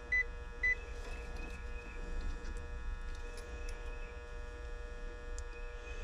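Two short high beeps from a Fieldpiece clamp meter, about half a second apart near the start, as it is set to read the compressor windings' resistance; a steady hum runs underneath.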